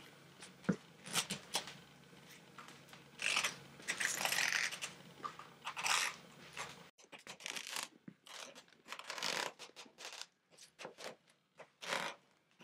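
Footsteps in plastic slippers on a parquet floor: light taps and knocks with several longer scuffing shuffles. A low steady hum sits under the first half and stops suddenly about seven seconds in.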